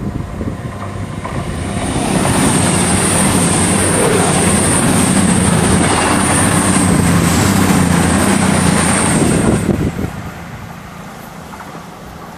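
CrossCountry Voyager diesel multiple unit passing close at speed, its underfloor engines humming and its wheels running on the rails with a high steady whine. The noise builds over the first two seconds, holds loud, then drops away suddenly about ten seconds in as the last car goes by.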